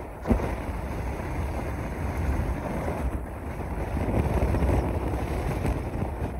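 Wind buffeting the microphone over the low rumble of a car driving along the road, with one short thump just after the start.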